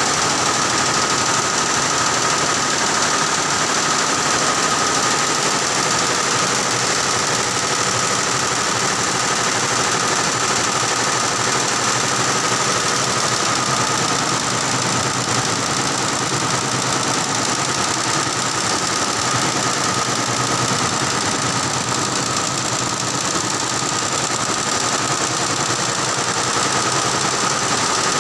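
Alliance 17-head computerized embroidery machine running, its needles stitching in a fast, even clatter over a steady high hum.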